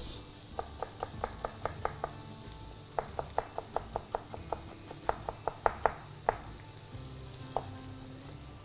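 Knife chopping an onion on a cutting board in quick runs of taps, about five a second, in three bursts with a single last chop near the end. Butter and olive oil sizzle faintly in the pan underneath.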